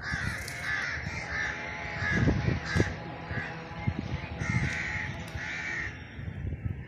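Crows cawing over and over in short harsh calls, stopping near the end, over a low rumble with a few thumps.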